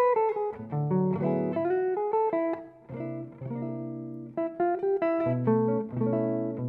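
Instrumental guitar music: a guitar picking notes and chords that ring and fade.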